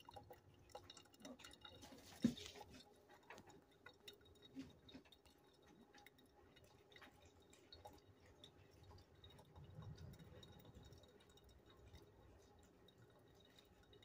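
Faint dripping of coffee from the filter basket of a Mr. Coffee drip coffee maker into its glass carafe. The machine no longer heats or pumps, so the hand-poured hot water drains through the grounds on its own. One sharper click comes about two seconds in.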